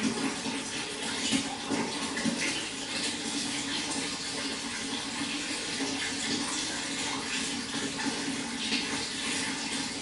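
Running water flowing and splashing steadily, an even rushing sound with small splashes through it.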